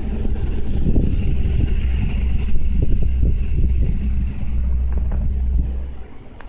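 A loud, steady low rumble with a faint hum over it, dropping away near the end.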